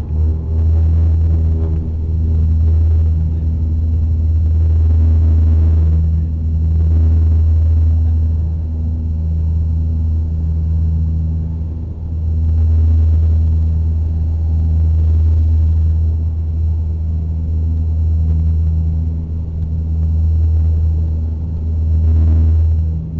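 Bombardier Dash 8 twin turboprop engines and propellers, heard from inside the cabin, while the aircraft rolls on the ground. It is a steady, loud, low propeller drone that swells and fades every few seconds.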